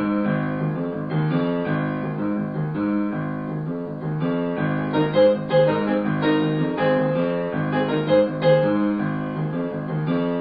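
Background piano music, with notes coming quicker from about halfway.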